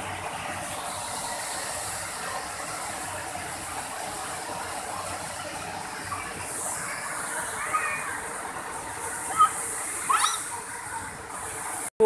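Waterfall cascading over rocks: a steady rush of falling water, with faint voices of people mixed in. There are a couple of brief louder sounds about nine and ten seconds in.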